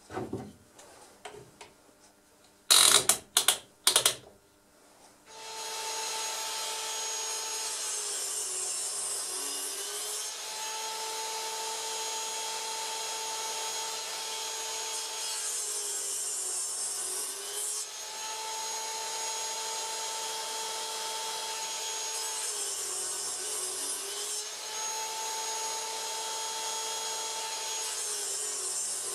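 A few loud knocks about three seconds in, then a sliding miter saw's motor starts and runs without stopping, its pitch sagging briefly about every six or seven seconds as the blade is loaded by cuts into plywood.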